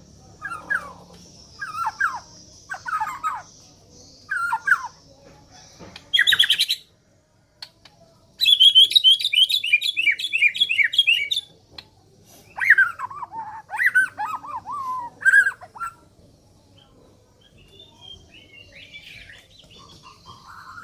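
White-rumped shama (murai batu) singing in short phrases of falling whistled notes, with a fast, rattling trill of about three seconds in the middle; its song is one the uploader calls strange, from a bird not well kept. The singing fades out near the end.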